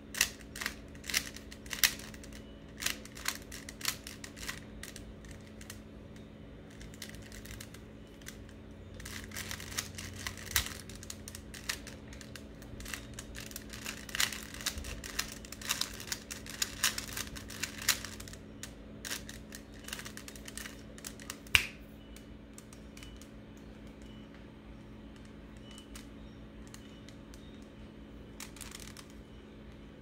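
Plastic 3x3 Rubik's Cube being turned by hand: quick runs of clicking and clacking as its layers are twisted, densest through the middle, then mostly stopping for the last quarter. A steady low hum runs underneath.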